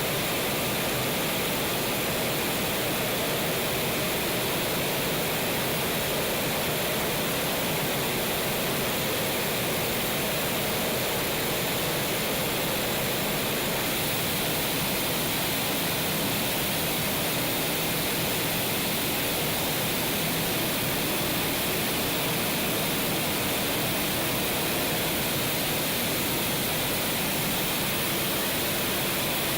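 Steady, unchanging rushing noise with no breaks or sudden sounds.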